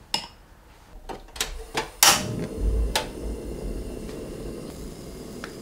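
Light clicks and knocks of kitchenware, the loudest about two seconds in, then a steady low rush as a portable gas stove heats a stainless steel pan with oil in it.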